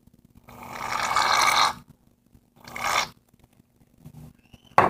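Aerosol can of shaving cream hissing and sputtering as foam is pressed out, in two bursts: a long one of about a second and a half, then a short one. A single sharp knock near the end.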